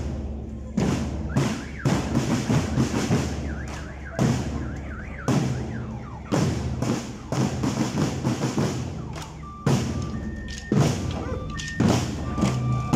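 Marching band drum line playing: snare and bass drums beating a marching cadence, with a few short ringing bell-lyre notes near the end.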